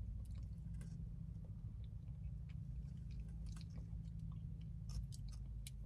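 Quiet mouth sounds of someone eating a spoonful of soft-serve Frosty, with scattered faint clicks, over a steady low hum.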